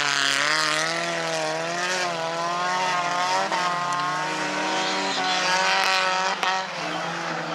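Several stock car engines racing together, their revs rising and falling over and over. A steadier lower engine note runs beneath them, and there is a single sharp knock about six seconds in.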